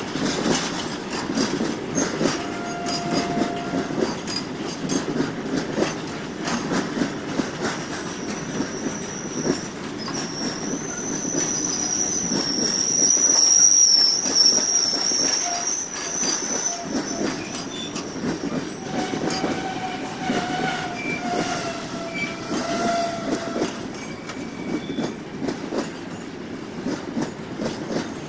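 Goods train wagons rolling past close by, a steady rumble with repeated clicks of wheels over the rails. From about ten seconds in a high metallic squeal holds for several seconds and is the loudest part. A lower, wavering squeal follows a few seconds later.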